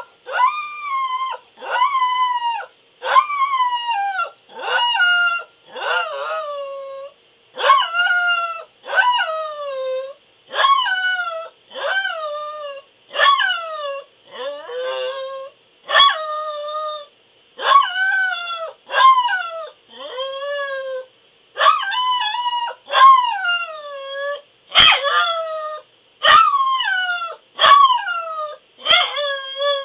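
Pembroke Welsh Corgi howling: a long run of short howls, about one a second, each starting high and sliding down in pitch.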